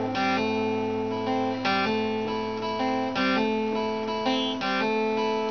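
Acoustic guitar strummed in an instrumental break between sung lines, chords held and changing every second or so.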